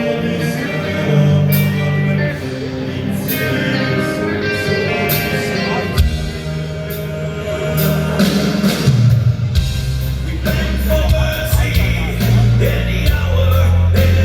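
Power metal band playing a slow ballad live: held bass and guitar chords, drums with cymbal strokes, and sung vocals over the band.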